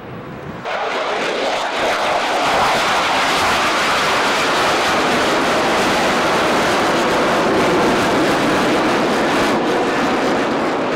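F-4 Phantom jet fighters' twin J79 turbojet engines, a loud steady jet noise as the aircraft fly past low and climb away overhead. The noise comes in abruptly just under a second in and then holds steady.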